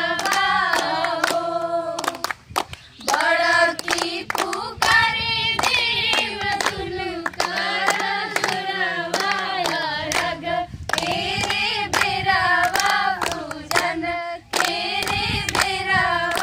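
A group of students singing a folk song together unaccompanied, clapping their hands in a steady rhythm along with the singing.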